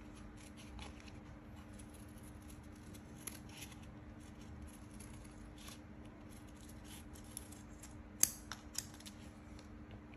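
Scissors snipping through thin orange coloured paper in many short cuts, cutting out a small circle; faint, with a few sharper clicks about eight seconds in.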